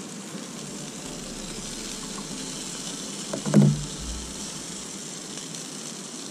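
Food sizzling steadily in a small frying pan on a portable gas camp stove, with one brief loud thump about three and a half seconds in.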